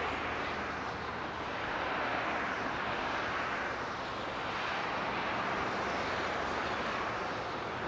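Steady rushing noise that swells and eases every couple of seconds, with a faint low hum beneath it.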